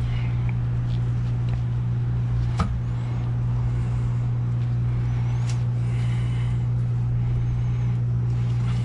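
A steady low machine hum, with a faint click about two and a half seconds in and another about five and a half seconds in.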